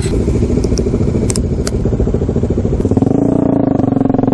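Kawasaki Dominar 400's single-cylinder motorcycle engine idling with a steady pulsing beat. Two sharp clicks come a little after a second in. About three seconds in, the engine note rises slightly and grows fuller.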